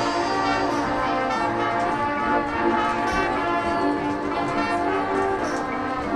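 Marching band playing, the brass section holding loud, sustained chords that change every second or so, with a few sharp percussion hits.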